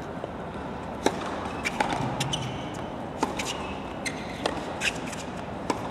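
Irregular sharp knocks, about ten over a few seconds, typical of tennis balls bouncing on the court between points, with a couple of short high squeaks and a steady stadium background.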